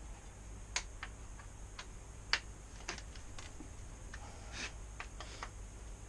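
Irregular light clicks and taps of tools and parts being handled during motorcycle fork removal, about a dozen in all, the sharpest about two seconds in.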